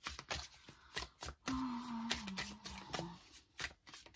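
A deck of tarot cards being shuffled by hand, overhand style: an irregular run of quick, soft card taps and slides as packets are lifted off and dropped back onto the deck.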